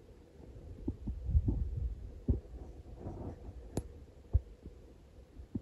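Irregular low thuds and several sharp clicks, the loudest about a second and a half in.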